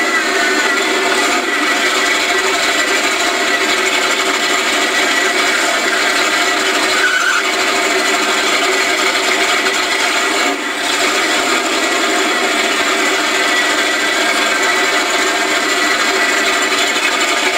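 4x4 mud race truck's engine running steadily, heard from inside the cab, with a brief dip in loudness about ten seconds in.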